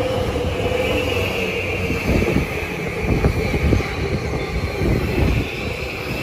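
JR East E235-series Yamanote Line electric train passing close by. Its wheels thump irregularly over the rail joints, under a high, steady whine.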